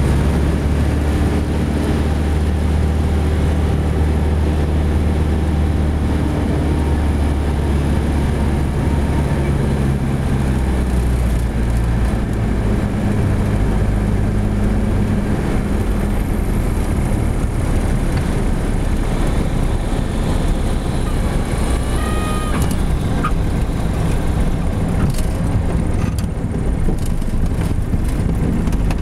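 Cessna 177B Cardinal's four-cylinder Lycoming engine and propeller droning inside the cabin on the landing approach, its pitch dropping about ten seconds in. Near the end comes a brief high squeal, then a few knocks.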